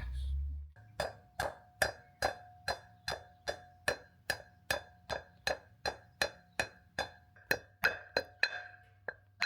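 Steady light taps, a little over two a second, driving a new grease seal into a caravan wheel hub; each tap rings briefly with a metallic tone.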